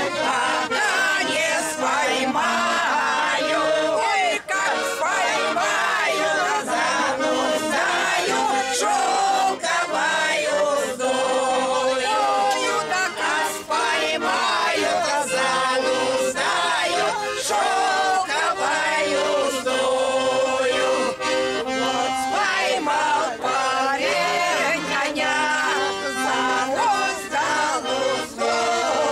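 A bayan, a Russian chromatic button accordion, playing a folk song while a group of older men and women sing along with it.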